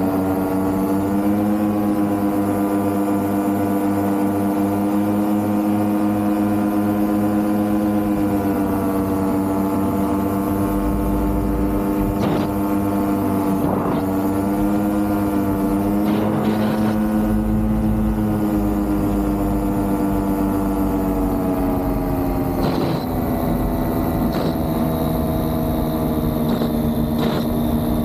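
Vittorazzi Cosmos 300 single-cylinder two-stroke paramotor engine and propeller running steadily in flight, a constant drone that rises slightly in pitch near the start and dips a little about 23 seconds in.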